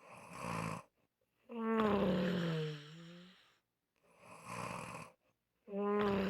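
Snoring: a short rough inhale, then a longer humming exhale that slides down in pitch, twice in a row.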